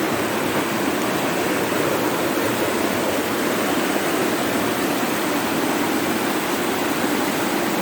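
Steady, even rush of floodwater running through a street after heavy rain.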